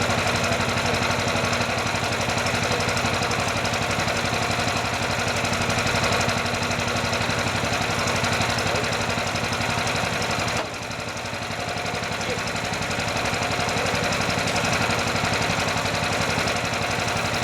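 Mini excavator's engine running steadily; about ten seconds in it drops suddenly in level and then builds back up over a few seconds.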